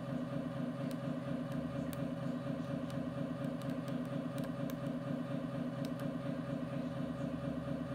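RC truck's electronic sound module playing a diesel truck engine at idle through its small speaker: a steady, evenly pulsing low hum, with a few faint ticks.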